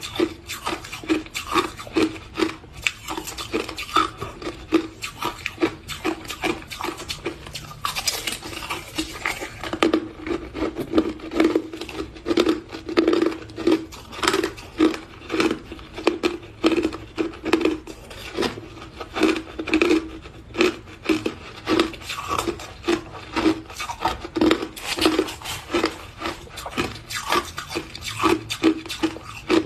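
Crushed ice being chewed close to the microphone: a steady run of crunches, a few per second.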